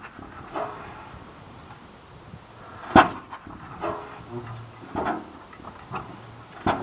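Large 100-horsepower hit-and-miss stationary engine with twin flywheels, running slowly: two loud, sharp firing bangs about three and a half seconds apart, about 3 s in and near the end, with fainter knocks between them as it coasts on the flywheels.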